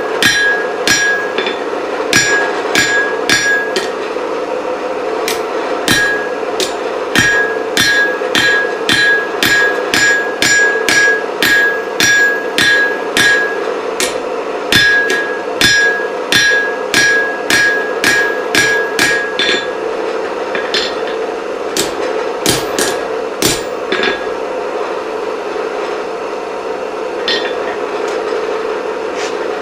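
Hand hammer striking a hot iron chisel blank on an anvil in runs of about two blows a second, many blows followed by a clear anvil ring; the blows thin out after about twenty seconds. A steady hum runs beneath.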